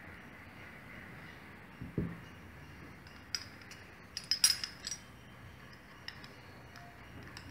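Kitchenware clinking: a dull thump about two seconds in, then a few sharp clinks in a quick cluster around the middle, over a faint steady hiss.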